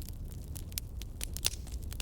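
Fire crackling: irregular sharp pops and snaps, the loudest about one and a half seconds in, over a steady low rumble.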